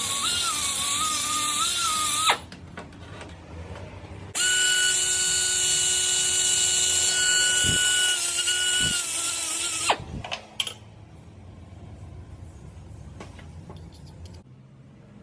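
A power tool runs in two bursts, about two seconds and then about five and a half seconds, with a loud hiss and a steady high whine. After it stops there are a few clicks and knocks.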